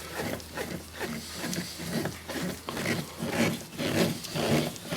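The latch's retaining screw being driven back into the door panel with a hand screwdriver, a short rubbing sound with each turn, roughly two or three a second.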